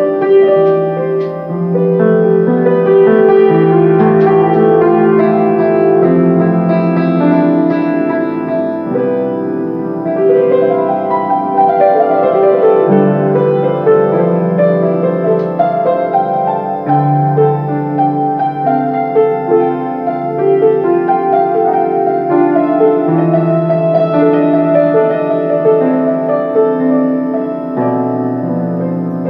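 Solo grand piano playing a slow, gentle composition: sustained chords over a low bass note that changes every two to four seconds.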